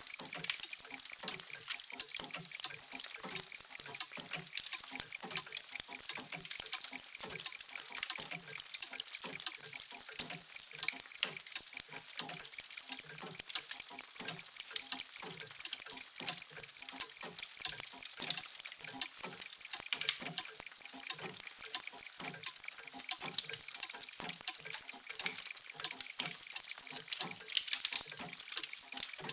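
Many mechanical clocks ticking at once: a steady, dense clatter of overlapping ticks with no chimes.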